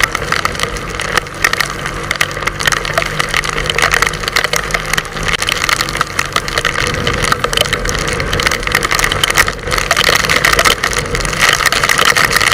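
Yamaha R15 motorcycle's single-cylinder engine running on the move, under a steady rough rush of noise.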